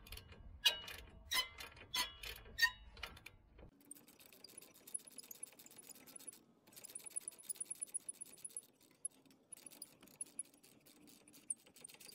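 Ratcheting socket wrench clicking as it spins the 19 mm nut off the strut's lower mounting bolt. There are a few separate, louder clicks at first, then from about four seconds in a fast run of light ratchet clicks.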